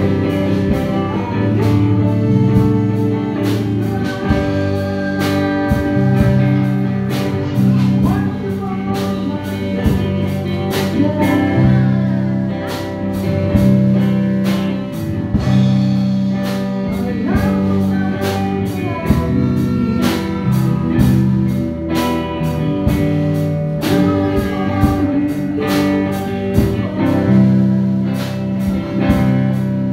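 Live worship band playing a slow song: electric guitar and drum kit with cymbals, with a man singing the melody into a microphone.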